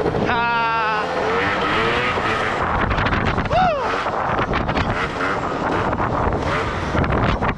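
Gilera Runner 180cc scooter engine revving up sharply about a second in, then pulling steadily under way, with a brief rise and fall in revs near the middle. Wind rushes over the microphone throughout.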